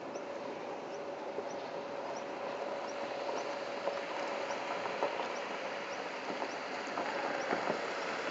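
Lada Niva running at low speed across loose gravel, its engine a steady drone under the crackle of stones under the tyres, which grows busier near the end as it comes closer. A faint high chirp repeats about every two-thirds of a second.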